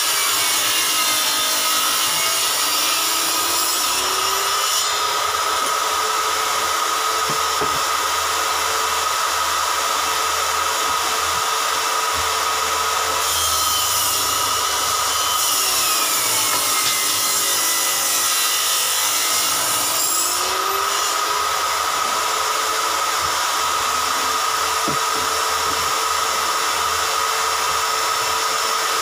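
Homemade table saw running, its circular blade ripping a sheet of board into strips. The steady motor and blade note dips and rises back twice, as the board is fed through.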